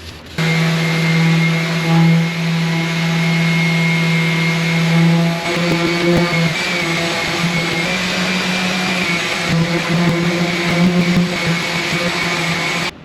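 Electric power tool motor running steadily under load, with a strong low hum and a faint high whine. It starts suddenly just after the beginning and cuts off suddenly near the end.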